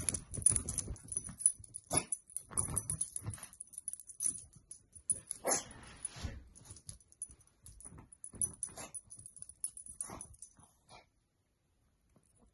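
Small dog eating dog food, making irregular bursts of chewing, snuffling and dog noises that die away near the end.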